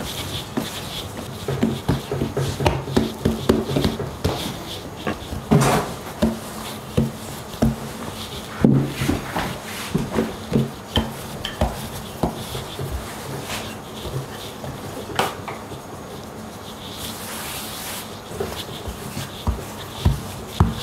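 Hands working yeast dough on a kitchen board: irregular rubbing and pressing with scattered small knocks, over a faint steady hum.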